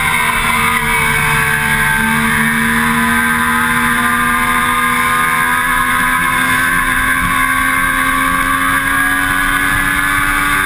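Triumph Daytona 675's three-cylinder engine pulling hard at high revs, its pitch climbing slowly and steadily as the bike accelerates, under loud wind rush on the tank-mounted microphone.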